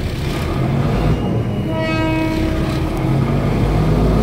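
A train horn sounds once, a single steady note lasting about a second and a half, over the low rumble of an engine running.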